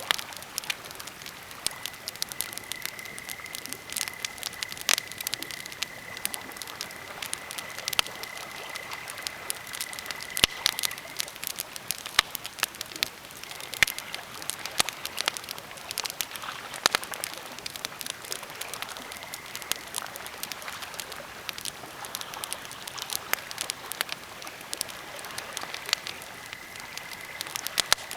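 Birch and pine campfire crackling, with many irregular sharp pops and snaps over a soft steady hiss. A thin high whistle comes and goes a few times, and lake waves lap faintly underneath.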